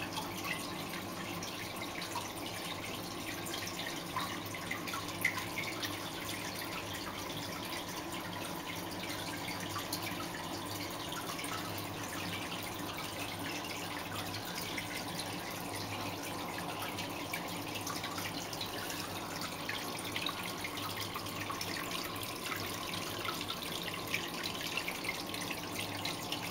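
Aquarium filter water trickling and splashing steadily into the tank, with many small drips and a faint steady hum underneath.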